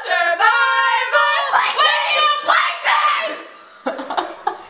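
Several girls talking and exclaiming loudly in high voices over one another, then breaking into laughter near the end.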